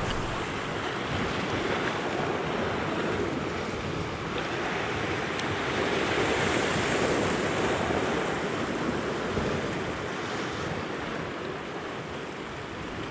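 Ocean surf washing over shoreline rocks: a steady rush of breaking waves that swells in the middle and eases a little near the end.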